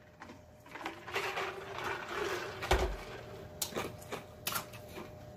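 Drinking from a mug with soft gulping, a single knock about three seconds in, then a scatter of short wet lip smacks and mouth clicks.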